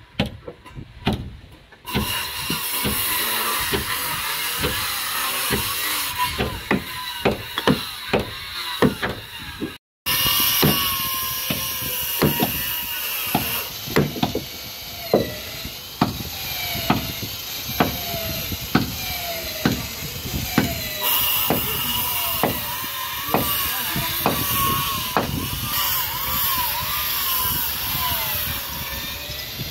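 Repeated hammer and mallet blows on wood, knocking wooden wedges into a timber plank, over a hand-held electric circular saw that runs through most of it, its pitch wavering as it cuts. The sound cuts out briefly about a third of the way in.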